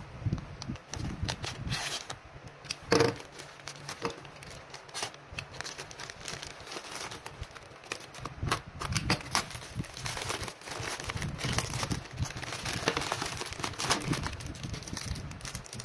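Plastic mailer bag crinkling and rustling as it is handled and cut open, then bubble wrap rustling as it is pulled out. Irregular crackles, with one louder one about three seconds in.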